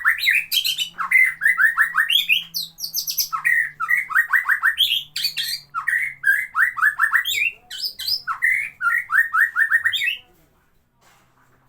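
A songbird singing a loud, fast song of quick downward-sweeping notes in repeated groups, stopping abruptly about ten seconds in.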